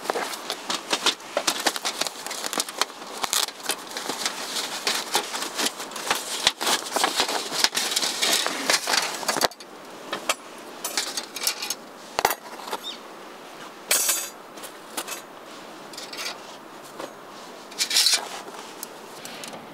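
Irregular small clicks, knocks and clinks of objects being handled, with a dense crackly rustle for about the first half, then sparser clicks and two brief rustling bursts.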